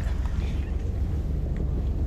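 Wind buffeting the microphone: a steady low rumble with a faint hiss over it.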